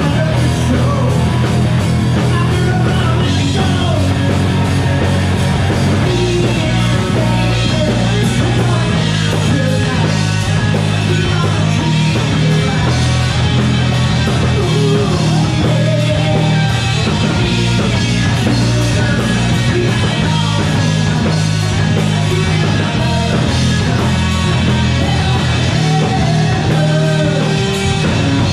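Live rock band playing a song through the PA: electric guitars, bass guitar and a drum kit, loud and steady.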